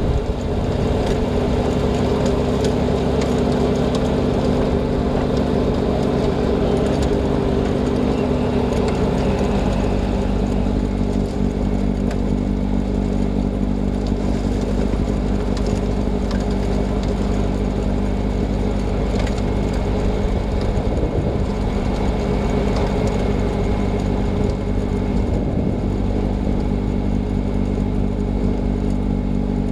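John Deere 6110R tractor engine running steadily under load, driving a snowblower through drifted snow; the engine note shifts slightly about ten seconds in.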